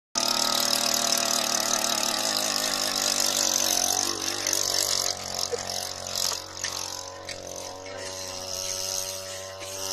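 An engine running steadily at idle, a constant hum that drops in loudness about halfway through.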